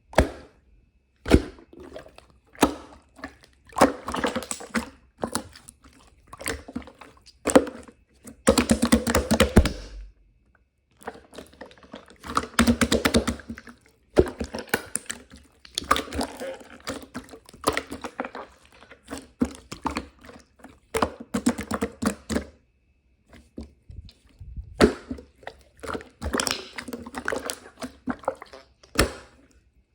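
Close-up handling sounds: irregular sharp taps and knocks, with stretches of wet, crackling squishing.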